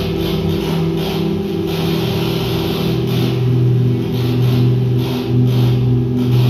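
Electronic music: sustained low synthesizer drone tones that step down in pitch about two seconds in, with a soft hissing pulse about every two-thirds of a second.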